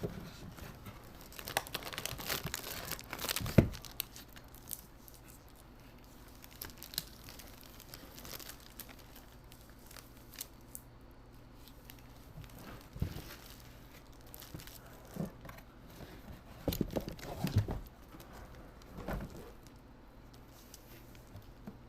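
Paper packaging in a sneaker box crinkling and tearing as it is unwrapped, in a dense rustle for a couple of seconds that ends in a sharp knock, then scattered shorter rustles and handling noises.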